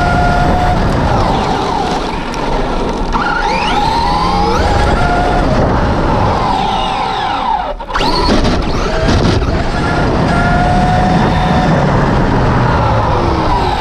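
Traxxas Rustler 4x4 RC truck's brushless motor and drivetrain whining on a 3S LiPo, the pitch rising as it accelerates and falling as it backs off, several times over, over a steady rush of wind and tyre noise from the onboard camera. A little before the middle the sound drops out for a moment, then the whine climbs again.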